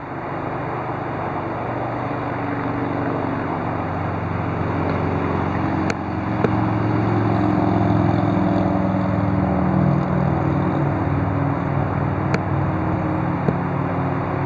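A motor vehicle engine running, its pitch shifting up and down and growing louder a few seconds in, with a few sharp clicks.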